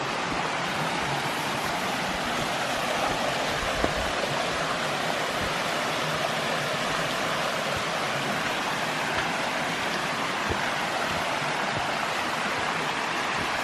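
Steady rushing of a rain-fed waterfall, running with runoff after rain.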